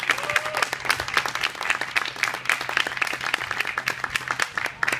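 Spectators applauding at the end of a figure skating program, many hands clapping at a quick, irregular pace.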